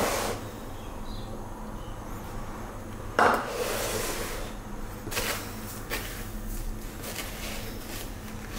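Handling sounds while breading a pork cutlet: a knock at the start, a louder clatter with rustling about three seconds in as the plastic tub of panko is handled and the cutlet goes into the crumbs, then light taps and rustling of hands working the crumbs.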